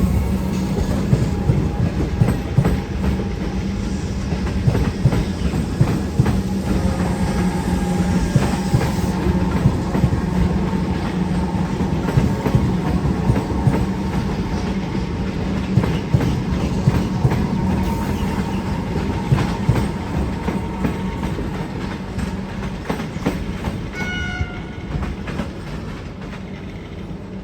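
Comeng electric suburban train running by, its wheels clacking over rail joints under a steady rumble that slowly fades near the end. A short horn blast sounds late on.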